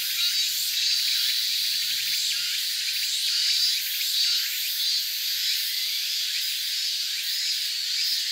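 Dense chorus of insects, a shrill high buzz that swells and eases over the seconds.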